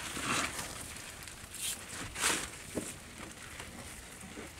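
A few short splashing, rustling noises as a wet mesh fish trap is hauled up out of the water over a small wooden boat, the loudest about two seconds in.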